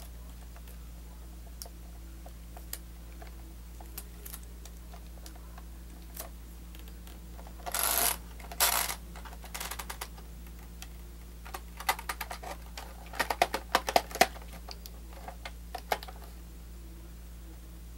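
Scattered small plastic clicks and taps from handling a VHS cassette shell during reassembly. There are two short scraping rustles about eight seconds in, and a quick run of clicks a few seconds later.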